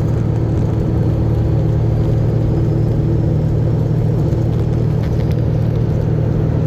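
Truck engine and road noise making a steady low drone inside the cab while driving.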